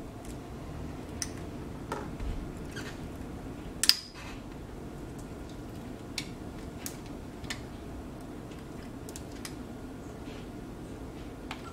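Scattered small clicks and taps as an opened iPhone 7's display is handled with a plastic pry tool, folded back down onto the frame and pressed flat, with one sharper click about four seconds in. A steady low hum runs underneath.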